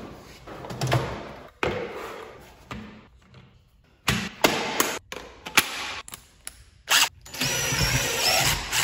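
A tool-chest drawer slides open and a plastic drill-bit case clicks and knocks as it is handled. Near the end, a DeWalt 18V cordless driver runs steadily for about a second, drilling into the wall with no stud behind it.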